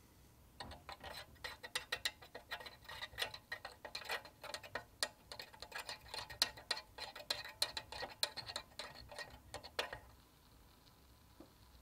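Tiny wire whisk clicking rapidly and unevenly against the sides and bottom of a miniature metal saucepan while whisking a cocoa mixture. The clicking starts about half a second in and stops a couple of seconds before the end.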